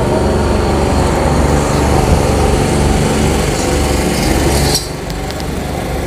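Steady low mechanical drone, like a motor or engine running, that drops in level suddenly near the end.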